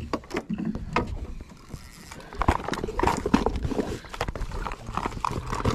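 Hard plastic tackle box being handled and its lid pressed shut: a run of irregular plastic knocks and clicks over steady wind noise.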